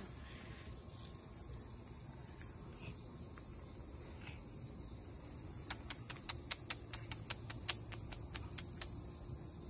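A steady, high-pitched insect chirring in the background. About two-thirds of the way in comes a quick run of sharp clicks, about four or five a second, lasting some three seconds.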